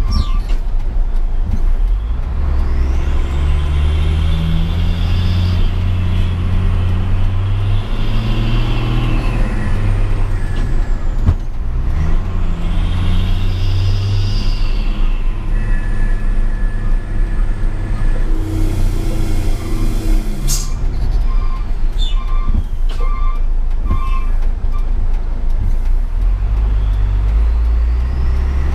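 A heavy diesel truck engine, its revs rising and falling in steps with a high whistle that climbs and falls as the engine pulls. A burst of air-brake hiss comes about two-thirds of the way through, followed by a few seconds of pulsed beeping.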